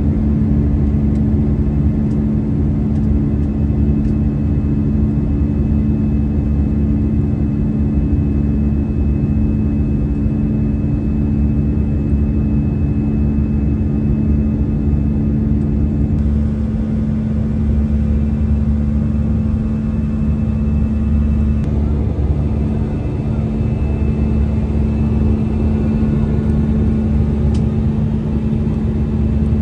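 Steady drone of an Airbus A320's twin jet engines heard from inside the cabin during the climb after takeoff: a deep rumble with a couple of steady humming tones, one of which drops out about halfway through.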